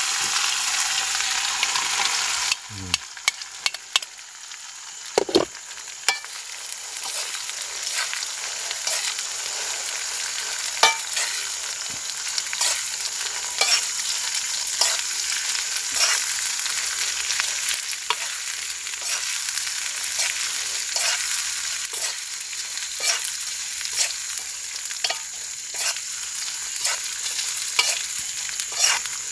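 Sambal frying in hot oil in a pan, sizzling steadily, with a utensil knocking and scraping against the pan again and again as it is stirred. The sizzle drops abruptly about two and a half seconds in.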